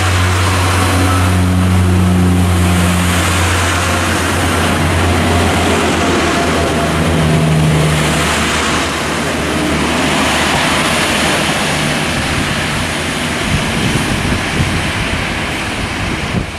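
Diesel multiple unit running along the platform, its underfloor diesel engine droning low with rises in engine note, over steady wheel and rail noise. The engine drone fades after about nine seconds as the last car passes, leaving rolling noise with scattered clicks.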